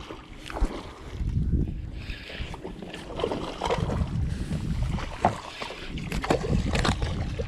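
Clothing rubbing and rustling against an action camera's microphone, a dense low rumble with scattered clicks and knocks from about a second in.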